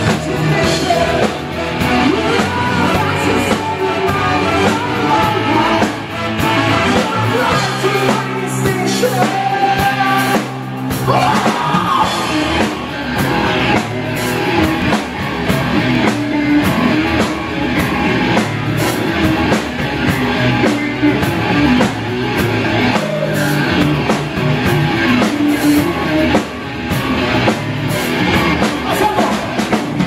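A rock band playing live: electric guitar, bass guitar and drum kit together, loud and without a break.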